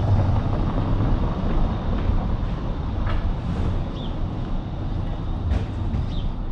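A car driving past close by on a cobblestone street, its engine and tyres rumbling low, loudest at first and easing off as it goes.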